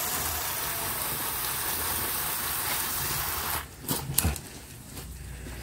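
Garden hose spray nozzle jetting water onto a plant's roots and into a plastic tray to wash off old potting medium: a steady hiss of spray that stops about three and a half seconds in, followed by a few light knocks.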